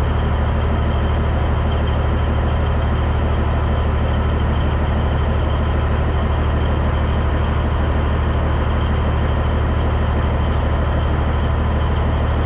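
Peterbilt 362 cabover semi truck's diesel engine idling, a steady low drone.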